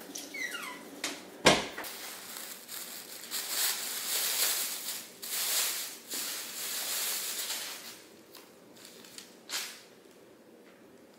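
Thin plastic shopping bag rustling and crinkling as it is opened and the things inside are pulled out, with a sharp knock about a second and a half in and a single click near the end.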